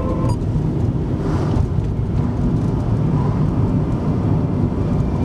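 A 2001 Volvo V40's 2.0-litre 16-valve four-cylinder engine running while driving, heard from inside the cabin together with steady road noise.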